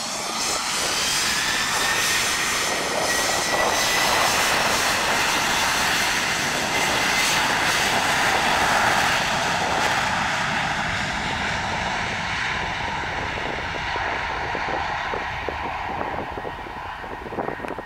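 Boeing 717's two Rolls-Royce BR715 turbofan engines spooling up for the takeoff roll. A whine rises in pitch over the first couple of seconds, then the jet noise holds loud and steady and slowly fades as the aircraft rolls away down the runway.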